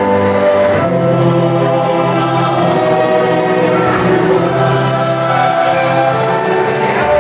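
Vocal group singing a gospel song in multi-part harmony, holding sustained chords that change every second or so.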